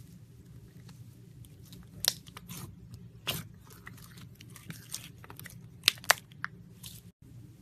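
Slime being squished and poked by hand: scattered crackling and sharp pops, the loudest a pair about six seconds in, over a low steady hum that cuts out briefly near the end.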